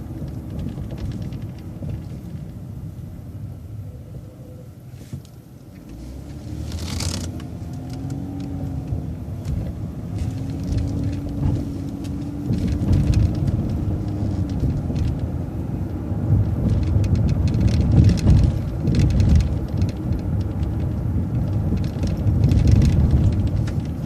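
City transit bus engine and road rumble heard from inside the bus. It is quieter for a few seconds as the bus slows at a stop sign, there is a short hiss about seven seconds in, and then the engine drones and grows louder as the bus pulls away and turns.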